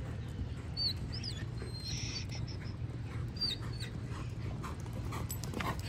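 Two short, high, faint squeaky calls that bend in pitch, about a second in and again about three and a half seconds in, over a steady low outdoor rumble.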